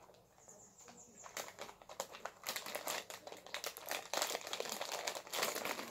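A plastic snack packet crinkling and rustling as a hand rummages inside it, in quick irregular crackles that start about a second and a half in and keep going.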